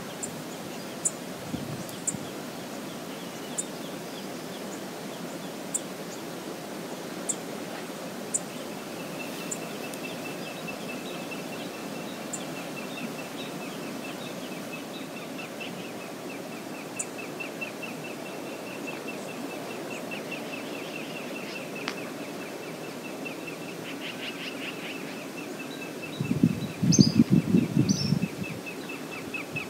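Steady rush of river water, with short high bird chirps now and then and a long, fast, high trill through most of the second half. Near the end a louder low rumbling lasts about two seconds.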